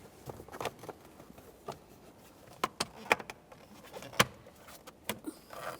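Plastic steering column covers being pressed together: a handful of separate sharp clicks and knocks, the loudest a little after four seconds in, with light handling rustle between them.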